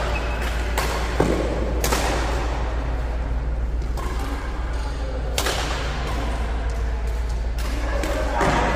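Badminton rackets striking a shuttlecock during a rally, a series of sharp cracks at irregular intervals, over a steady low hum.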